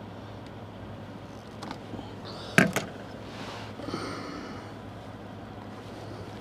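Wire strippers working a thermostat jumper wire: a few faint handling clicks and one sharp snap about two and a half seconds in, over a steady low hum.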